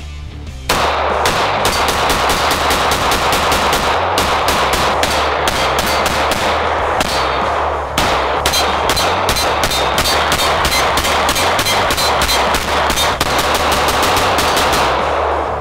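Rapid strings of 9 mm pistol shots from an Arsenal Strike One Speed striker-fired pistol, several shots a second, with a brief break about halfway through.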